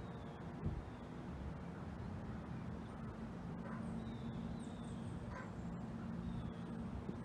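Waterfront ambience: a steady low hum, with faint bird calls twice in the middle and small high chirps around them. A single low thump comes less than a second in.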